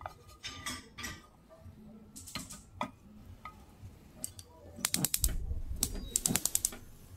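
Chopsticks tapping and scraping in a nonstick frying pan while an omelette is rolled against the pan's edge, then the pan knocking and sliding on the gas-stove grate, with clusters of sharp clicks about five and six seconds in.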